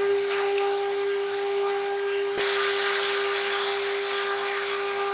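CNC router spindle running with a steady high whine while the bit cuts wood. There is a click about halfway through, after which the hiss of cutting is louder.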